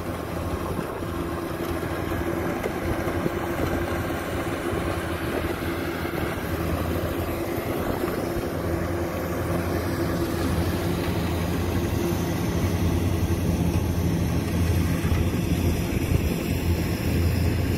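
Kubota DC-105X combine harvesters cutting rice: a steady drone of their diesel engines and threshing machinery, with a constant hum tone, getting a little louder in the second half.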